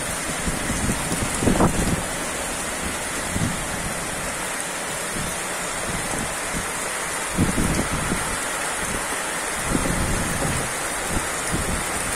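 Heavy rain falling steadily in a thunderstorm, a constant hiss with a few short low rumbles every few seconds.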